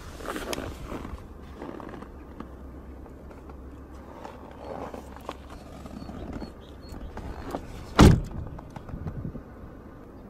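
Soft rustling and handling noises, then a car door shut with one loud thunk about eight seconds in.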